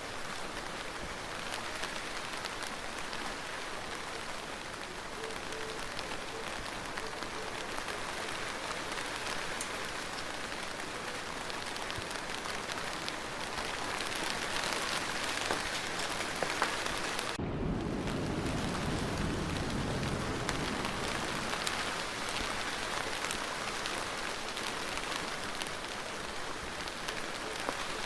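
Steady rainfall, an even hiss of drops with no thunder. About seventeen seconds in, the sound briefly breaks, like an edit, and a lower rumble comes in for a few seconds.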